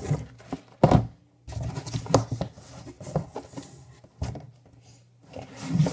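Cardboard shoe box being handled and opened: a sharp knock about a second in, then several lighter knocks and rustles of cardboard.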